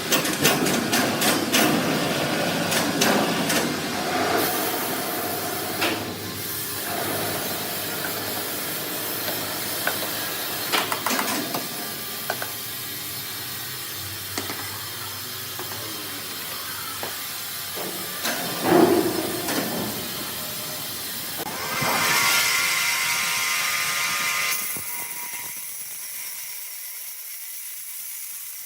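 Sawmill machinery running, with a clatter of sharp knocks and bangs from timber being handled and a loud hissing stretch near the end. The sound changes abruptly several times.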